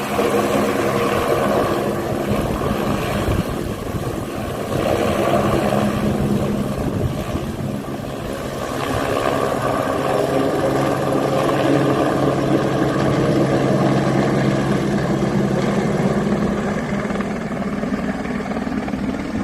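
Helicopter's rotor and engine running steadily, a continuous drone that grows somewhat louder around the middle and eases off a little near the end.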